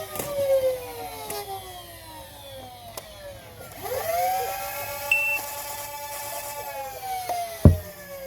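Electric flywheel motors of a fully automatic foam-dart blaster whining as they spin down, spin up again about four seconds in, hold speed and start winding down near the end. A few sharp clicks and one loud thump near the end.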